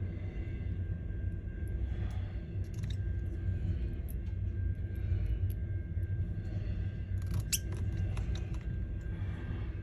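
Small, scattered clicks and taps of tools and parts being handled during phone reassembly, the sharpest about two-thirds of the way in, over a steady low hum.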